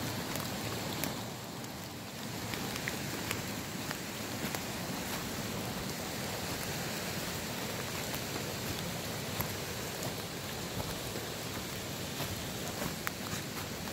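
Steady patter of rain, with scattered sharper drops ticking through it.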